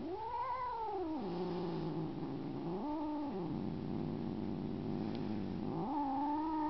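Adult cat growling low and without a break, the growl swelling three times into drawn-out rising-and-falling yowls: near the start, about three seconds in, and near the end. It sounds serious: an upset cat warning off a kitten that is pestering him.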